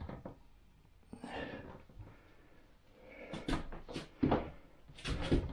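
A few sharp knocks and thumps of handling, bunched in the second half, with a faint breath or murmur about a second in.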